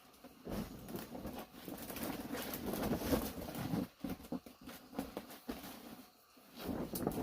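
Rustling, scraping and light knocks of building materials being handled and fitted during shelter repair, with a quieter spell before a short louder burst of handling near the end.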